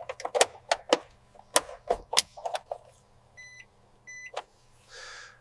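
Quick run of sharp plastic clicks and snaps as an electronics module is seated in a car's centre console and its wiring connectors are plugged in, followed by two short electronic beeps about a second apart and a soft whoosh near the end.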